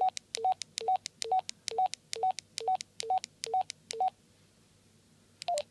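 Keypad beeps from a Misuta Hero handheld radio (Baofeng UV-5R type) as its menu is stepped through with the arrow key: a short rising two-note beep with each press, about two a second for some four seconds. Near the end comes one brief falling two-note beep.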